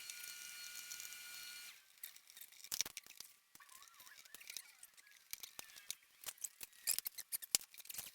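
Faint steady hiss with a few thin whistling tones for the first couple of seconds, then a run of light irregular clicks, snaps and small knocks from hand work on a car door, as the interior door panel is pried off.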